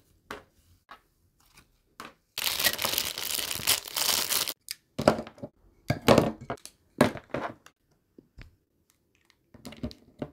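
Cloud slime being stretched and pulled apart: about two seconds of dense, crackly tearing, then several shorter crunchy squishes as it and the plastic popsicle-shaped containers are handled.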